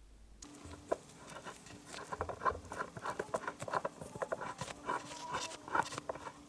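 Hand screwdriver driving a screw into a metal cross dowel in a wooden table frame: an irregular patter of small clicks and taps, starting about half a second in.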